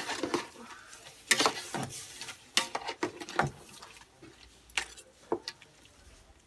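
A metal ladle knocking and scraping against a large metal cooking pot as meat is stirred and turned: a string of sharp, irregular clinks and knocks.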